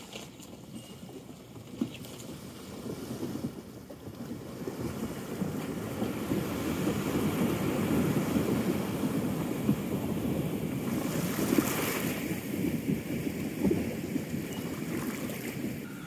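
Suzuki Grand Vitara driving through a shallow creek crossing: engine and churning, splashing water grow louder as it comes across, are loudest a little past halfway, then ease off.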